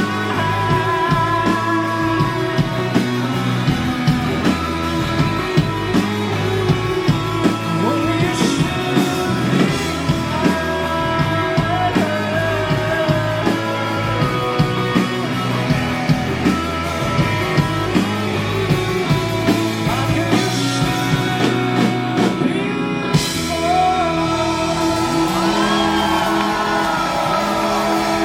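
Rock band playing live with sung vocals over guitars, bass and drums, the drums keeping a steady beat. A short break in the cymbals comes a few seconds before the end, then the band plays on. The sound carries the echo of a large hall.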